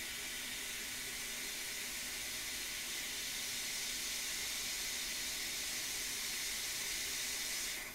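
Hot air rework gun blowing a steady hiss of hot air onto a small chip on a laptop logic board to melt its solder for removal. The hiss stops abruptly near the end.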